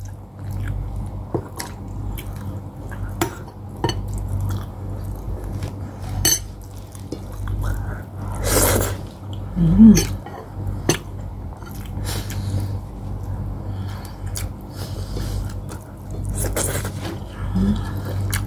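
Close-up mukbang eating sounds: chewing, with spoon and fork clinking and scraping on a ceramic plate and bowl. A steady low hum runs underneath, and two louder noisy bursts come about halfway and near the end.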